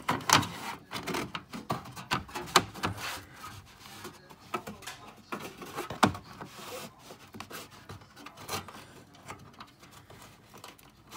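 Handling noise: irregular clicks, taps and rubbing as doorbell wiring and parts are worked into a wall cavity, with sharper knocks about two and a half and six seconds in.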